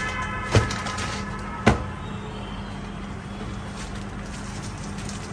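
Two sharp clicks a little over a second apart as the camera mount adapter is handled, over a steady background hum.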